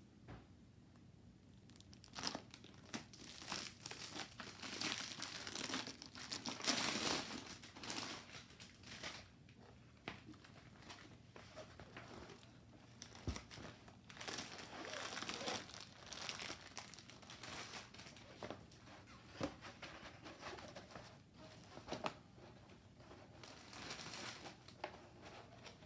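A large rolled diamond-painting canvas being unrolled and handled, its plastic covering crinkling and rustling in irregular bouts with small crackles, starting about two seconds in.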